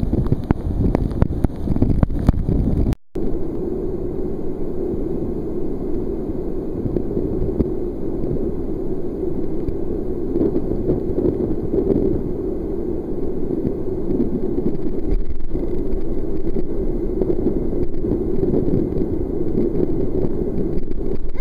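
A powerful waterfall rushing and crashing into a canyon pool, a loud, steady, deep rush of water. For the first few seconds it comes with crackling buffets on the microphone, and the sound cuts out for an instant about three seconds in.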